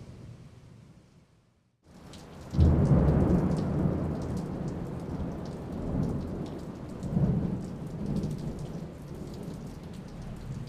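Thunderstorm recording: steady rain hiss with a loud crack of thunder about two and a half seconds in, rolling on as a low rumble that swells up again a few times. It follows the fading end of another sound and a brief gap.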